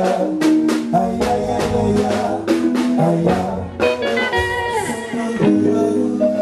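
Live band playing at a sound check, with drum kit and guitar in a steady beat. About four seconds in, the drum strokes stop under a falling melodic line, then the band carries on.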